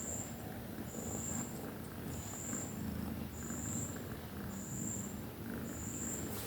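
Nursing cat purring in a low, pulsing rumble. A short, high-pitched chirp repeats over it about once every second and a bit.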